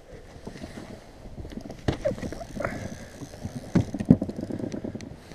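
Knocks and rubbing from a person shifting about in an inflatable rubber boat: a few sharp knocks, the loudest two about four seconds in.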